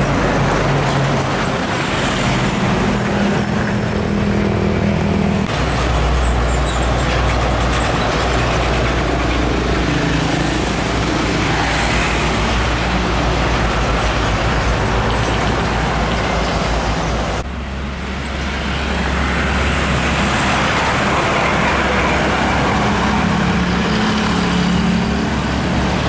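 Old diesel trucks running past on the road, their engines a steady low drone over traffic and road noise. The sound changes abruptly twice, about five and a half and seventeen and a half seconds in, as the footage cuts from one passing truck to the next.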